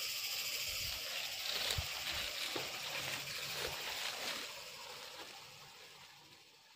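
Steady high outdoor hiss with a few soft knocks, fading out over the last few seconds.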